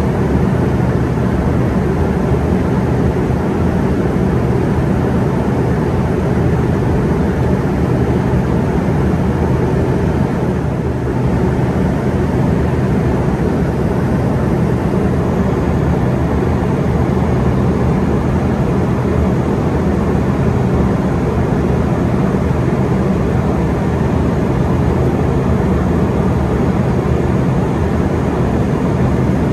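Steady cabin noise inside an Embraer ERJ145 in flight: the even drone of its Rolls-Royce AE3007 turbofans mixed with rushing airflow, a deep rumble that does not change.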